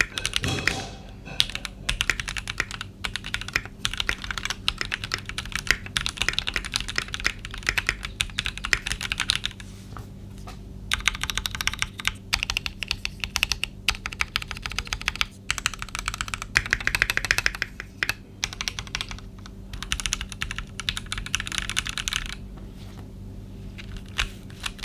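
Typing on a Keychron Q6 aluminum mechanical keyboard with stock Gateron Pro Red linear switches and stock keycaps: fast runs of keystrokes broken by a few short pauses.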